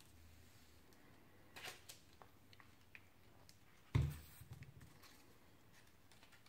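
Quiet handling of a coffee-filter paper petal and a small plastic glue bottle on a work table: a few faint rustles and clicks, then one sharp knock about four seconds in.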